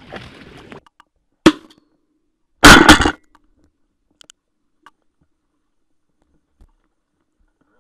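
Shotgun shots at ducks: one sharp blast about a second and a half in, then about a second later a louder cluster of two or three shots close together.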